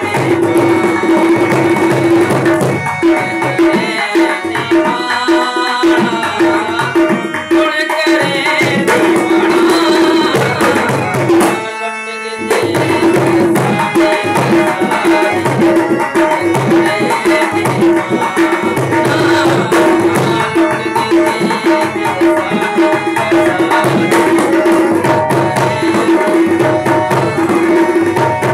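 Harmonium playing a held drone with a melody over it, accompanied by a rhythmic hand drum, in a South Asian Sufi kalam. The music breaks off briefly about twelve seconds in.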